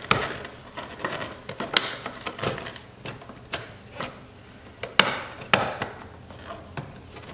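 Carbon fiber mirror cover being pressed onto a Cadillac CTS-V side mirror housing, giving a handful of sharp plastic clicks and taps as its tabs are worked into the slots. The loudest clicks come about five seconds in.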